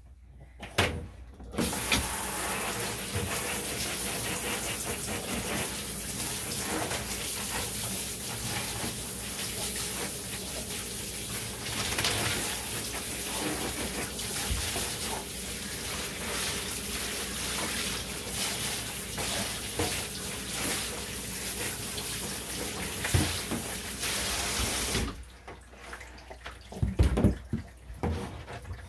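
Water running steadily from a tap or sprayer, turned on about two seconds in and shut off near the end, followed by a few dull thuds.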